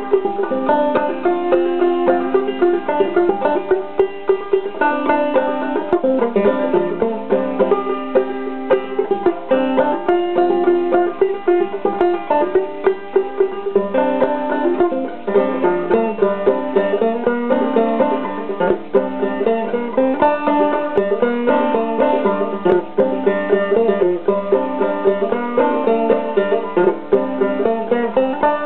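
Five-string banjo played clawhammer style: a steady, unbroken run of plucked and brushed notes in a modal tune.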